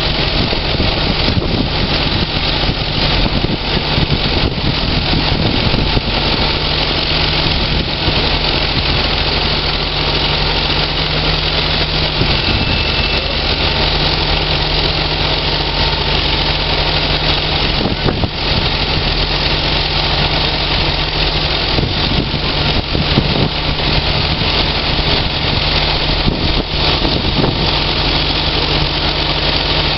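Heavy diesel machinery running steadily: the engine of a Case IH Steiger Quadtrac 535 tracked tractor stuck in mud, with a John Deere excavator working close by.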